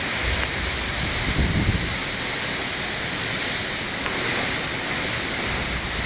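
Steady rain hissing, with wind gusting against the microphone as a low rumble about a second and a half in.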